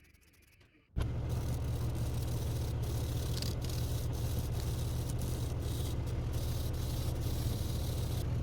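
An electric power tool switches on about a second in and runs steadily, a low motor hum under a constant abrasive hiss.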